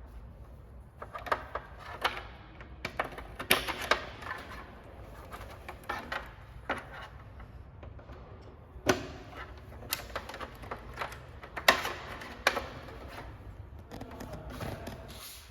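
Irregular clicks and knocks of hardware being handled, over a steady low hum.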